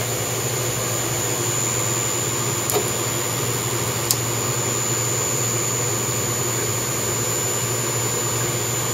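CNC mill's VFD-driven spindle and tapping head running steadily through a roll-tapping cycle on M5 holes: a steady hum with a thin high whine. Two short sharp clicks come about three and four seconds in.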